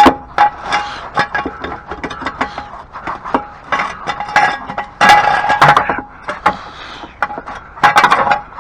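Metal clinks and knocks of a steel jack stand being positioned and set under the car, a cluster of louder clanks about five seconds in and again near the end.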